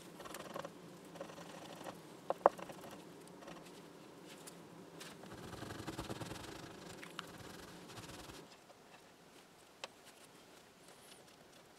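Lacquer paint stick rubbing and scratching over the engraved lettering of a radio faceplate, filling the letters with paint. There are two sharp clicks about two and a half seconds in and a single click near the end, and the rubbing fades to a faint rustle after about eight seconds.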